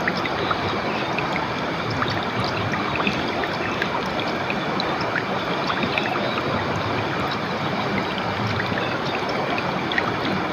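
River water flowing in a steady rush, with many small splashes and trickles.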